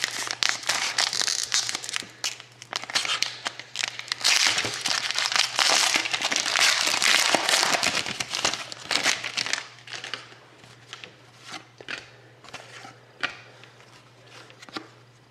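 Plastic wrapper of a trading-card pack crinkling and tearing as it is opened: dense crackling for about ten seconds, then dying down to scattered light clicks and rustles.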